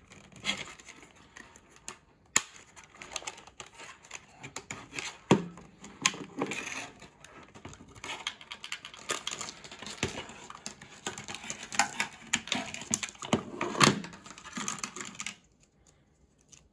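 Hard plastic parts of a Haslab proton pack's cyclotron lid clicking, scraping and snapping as hands pry and work them apart. The handling goes in irregular clicks and rubs and stops about a second before the end.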